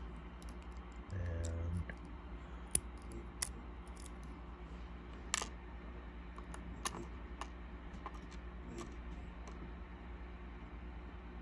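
Scattered light clicks of metal tweezers and small lock pins tapping on a plastic pin tray as pins are picked out of a lock cylinder, a few sharper than the rest. A brief low buzz about a second in, over a steady low hum.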